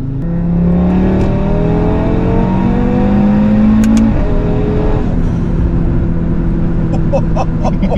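Audi RS3's turbocharged 2.5-litre five-cylinder with a DAZA exhaust, heard from inside the cabin under hard acceleration. The revs climb for about four seconds, drop at a quick upshift, and the engine pulls on in the next gear, with a short run of exhaust crackles near the end.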